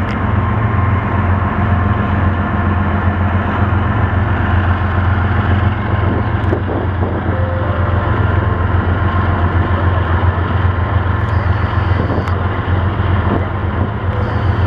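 Canadian Pacific diesel freight locomotives running close by, a steady loud low engine drone.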